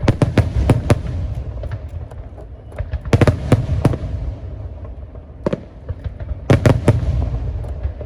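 Aerial fireworks shells bursting: clusters of sharp bangs in quick succession near the start, a little after three seconds in, and again around six and a half seconds, with a low rumbling echo between them.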